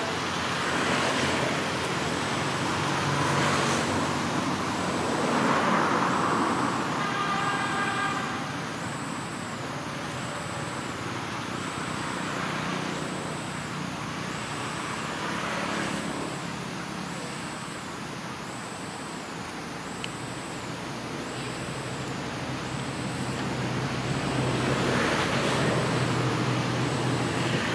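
Road traffic noise rising and falling as vehicles pass, with a short pitched tone about seven seconds in.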